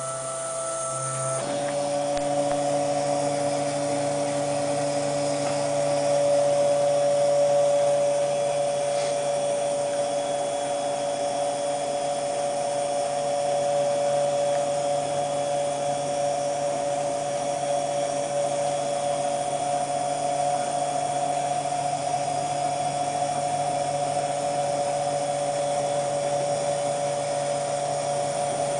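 Axis drive motors of a homemade CNC plasma table whining steadily as the gantry moves a marker across plywood, tracing a 900 mm test square used to set up the X and Y axes before the plasma torch is fitted. The whine shifts slightly in pitch about a second and a half in.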